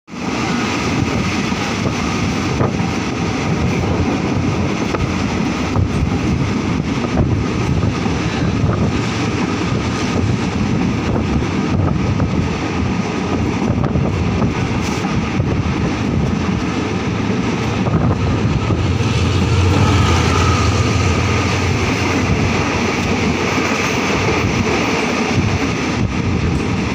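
Steady rumble of a moving passenger train's carriage running on the rails, with wind from the open window buffeting the microphone; it grows a little louder about twenty seconds in.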